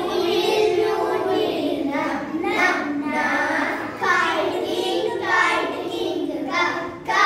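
A small group of young girls singing together in unison, a phonics song of letter sounds.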